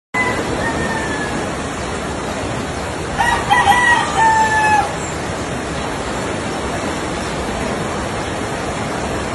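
Steady rush of fast-flowing floodwater running down a village street. A rooster crows loudly a little over three seconds in, with a fainter crow right at the start.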